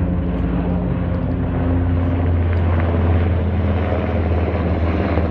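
Sikorsky S-70 Black Hawk helicopter flying overhead: a steady low drone of rotor and engine noise, its low pitch shifting slightly about two seconds in.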